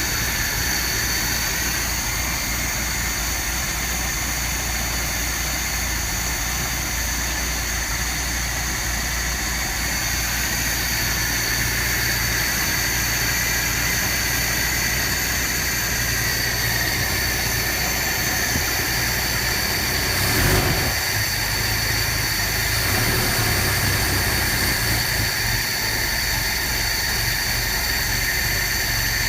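1976 Chevy LUV's 1.8-litre Isuzu four-cylinder engine idling roughly, with a brief rise about two-thirds of the way in followed by an uneven few seconds. The engine idles poorly and bogs down and tries to die when revved.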